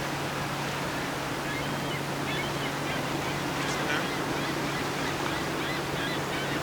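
Outdoor waterside ambience: a steady low hum over an even wash of noise, with scattered short bird calls starting about a second and a half in.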